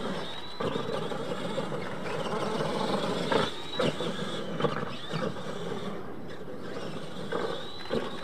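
Electric RC monster trucks of the Clod Buster type racing on a dirt track: a whining motor and gear drive that rises briefly with each burst of throttle, tyres churning loose dirt, and a few knocks from the trucks hitting ramps and obstacles.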